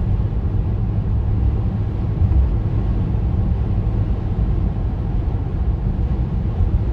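A car driving through strong gusting wind: a steady low rumble of road and wind noise.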